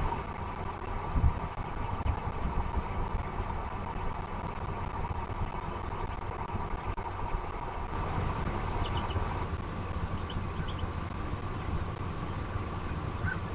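Steady low outdoor rumble, with a few faint, short, high bird chirps about nine and eleven seconds in.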